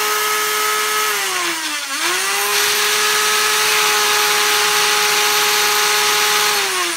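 Electric motors of a Nerf Rival Nemesis, fed from a 3S LiPo through a MOSFET circuit, spinning up to a steady high whine. They wind down about a second in, spin up again a second later, and run steadily until they wind down near the end.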